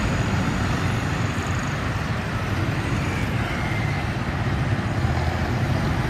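Street traffic going by: motor tricycles, a motorcycle and cars passing, their engines and tyres making a steady mix of noise.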